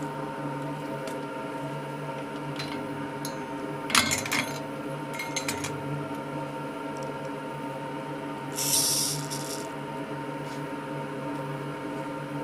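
Small metal tools clicking and tapping on a metal soldering fixture, a cluster about four seconds in and a few more a second later, over a steady electrical hum. A short hiss comes about nine seconds in.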